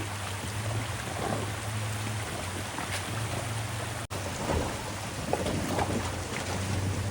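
Off-road truck driving along a rough dirt trail: a steady low engine hum under a constant rumble of tyre noise, with scattered knocks and crunches from rocks and gravel. The sound breaks off for an instant about four seconds in.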